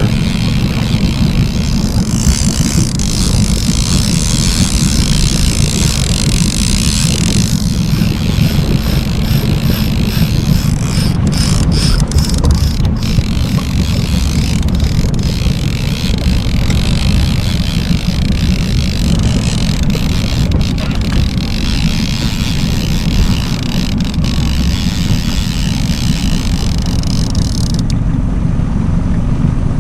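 Boat motor running steadily at trolling speed, a continuous low rumble, with wind buffeting the microphone.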